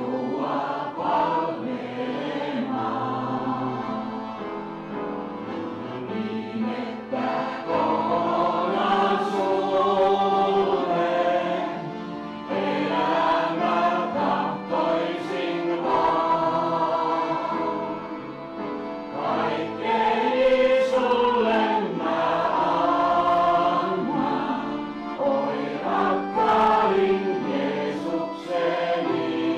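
A piano accordion and an upright piano playing a song together, with a voice singing along.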